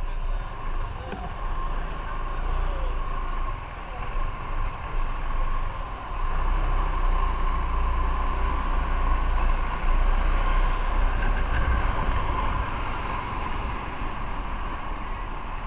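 Motorcycle riding in city traffic: engine and road noise with a heavy low rumble, growing louder about six seconds in as the bike moves off from standstill.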